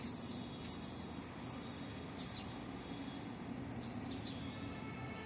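Small birds chirping in short, high, repeated notes, about three a second, over steady background noise with a low hum.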